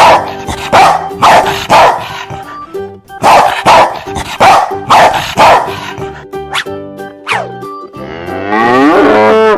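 A dog barking over background music, about ten barks mostly in quick pairs, in the first five or so seconds. Then come two quick falling whistle-like glides, and near the end a loud warbling electronic sound effect.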